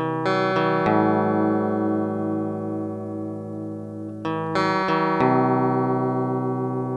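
Music: guitar chords struck and left to ring, with a new chord a little past four seconds in.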